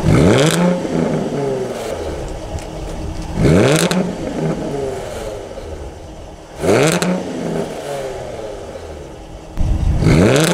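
Jaguar F-Type's supercharged 3.0-litre V6 revved four times while parked, with the exhaust in comfort mode: each blip rises sharply to about 3,500 rpm and falls back to idle, about three seconds apart.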